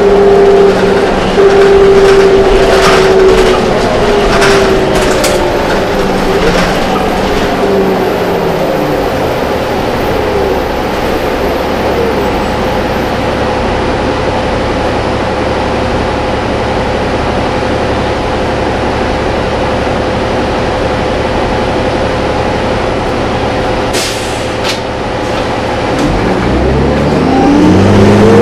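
Cummins ISL diesel engine and driveline of a New Flyer D40LF city bus, heard from inside the cabin. The pitch falls as the bus slows in the first several seconds, then it runs steadily with a constant whine. Near the end the pitch rises again as the bus accelerates. Scattered knocks and rattles come in the first few seconds, and a couple of sharp clicks come about 24 seconds in.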